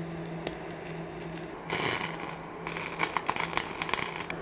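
TIG welding arc on brass and stainless steel, hissing and crackling, with a noisy surge a little under two seconds in and a run of sharp pops through the last second and a half, over a steady low hum.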